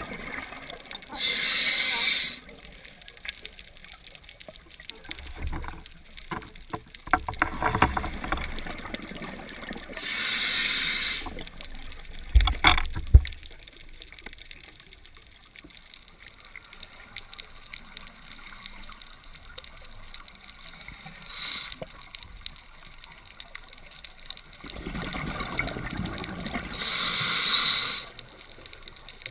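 A scuba diver breathing underwater, heard through the camera housing: three loud bursts of exhaled bubbles from the regulator, spaced several seconds apart, with a softer rushing between them. A couple of sharp knocks about twelve seconds in are the loudest sounds.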